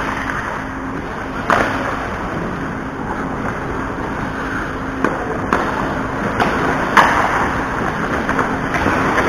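Ice hockey play on a rink: skate blades scraping and carving on the ice, with sharp clacks of sticks and puck, one about a second and a half in and several more in the second half, over a low steady hum.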